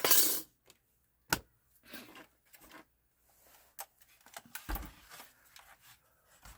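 Parts of a PlayStation 4 console being handled on a workbench: a short scraping rustle, then a sharp click, scattered small clicks and knocks, and a low thump about five seconds in.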